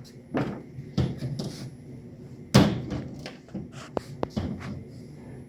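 Knocks and clatter of rack parts and mat being picked up and handled on a workbench. The loudest knock comes about two and a half seconds in, and two short ringing clinks follow about four seconds in.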